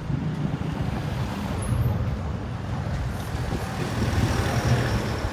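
Road traffic on a street: vehicles passing in a steady wash of engine and tyre noise.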